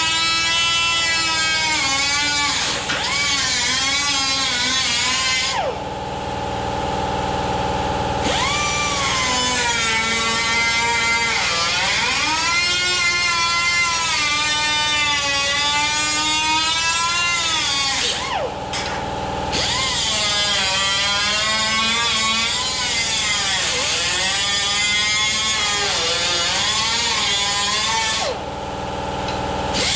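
Small electric angle grinder with a thin cut-off wheel cutting through the sheet-steel cab panel, cutting out a rippled section. Its high motor whine sags and recovers again and again as the wheel bites and eases. Three times the gritty cutting noise stops for a second or two while the motor keeps spinning.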